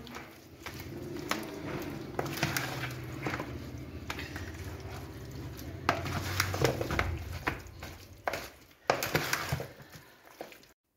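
A hand mixing raw chicken pieces into a spice marinade in a plastic tub: repeated wet clicks and rubbing, over a low steady hum. It cuts off suddenly near the end.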